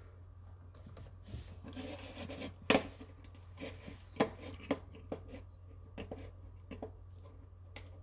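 Scattered clicks and taps of a Toshiba Satellite laptop's keys and touchpad buttons as it is worked, the sharpest about two and a half and four seconds in, over a low steady hum.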